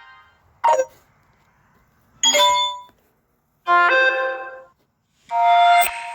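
Samsung Galaxy A50 stock notification sounds played one after another: four short electronic chimes, each a second or less and separated by silence. The first is a brief blip; the last is still fading near the end.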